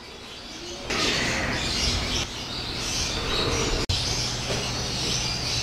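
Many small birds chirping and chattering continuously, with a faint low hum underneath.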